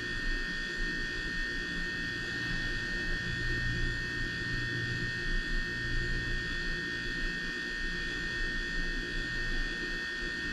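Steady electrical hum and buzz with constant high whining tones: background noise of the recording room, without change.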